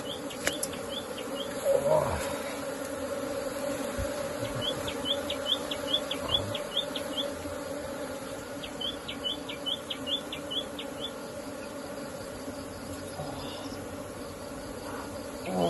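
A honeybee colony buzzing as a steady, dense hum. Quick runs of high chirps come through it a few times.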